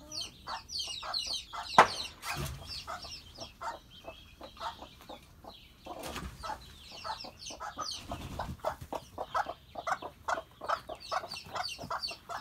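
Hens clucking in quick repeated notes, with the high peeping of young chicks over them at times. A sharp knock about two seconds in, and a few dull thumps later.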